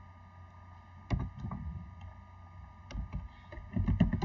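Computer keyboard keystrokes in short irregular clusters, a few about a second in and a louder quick run near the end, over a steady electrical hum.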